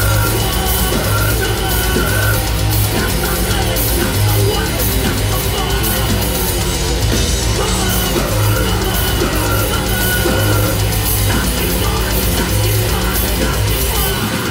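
A heavy metal band playing loud and without a break, heard from the crowd. Distorted electric guitars, bass and a full drum kit fill the sound.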